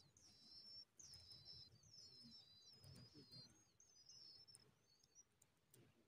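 Cisticola nestlings begging for food: a quick run of thin, high chirps and short sliding squeaks that thins out in the second half.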